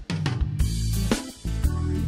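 Background music: a band's drum kit and bass playing a steady rock beat, the full band having just come in.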